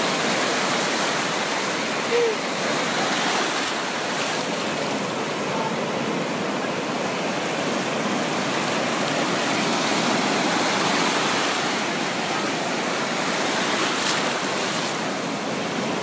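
Sea surf breaking and washing over the shallows in a steady rushing hiss, with a short voice about two seconds in.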